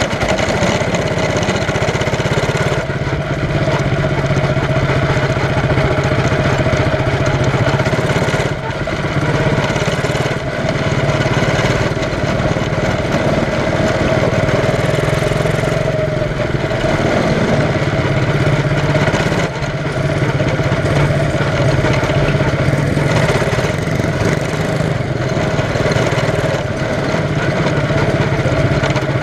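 Quarter midget race car's small single-cylinder engine running hard on track, heard from a camera mounted on the car. The note dips briefly a few times, about a third and two-thirds of the way through.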